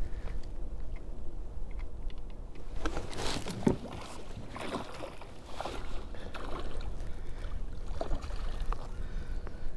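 Water splashing and lapping around a fishing kayak, with wind rumbling on the microphone. The splashes come thickest from about three to six seconds in.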